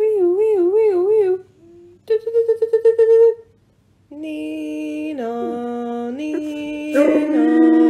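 A person humming to a yellow Labrador retriever: first a wavering, wobbling note, then a fast pulsing one, then long held notes that step down and back up. About seven seconds in, a louder long note begins as the dog starts to howl along.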